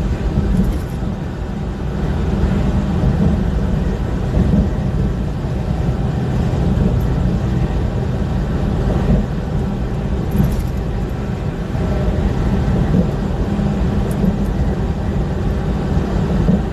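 Steady low drone of a semi truck's engine and tyres at highway speed, heard inside the cab.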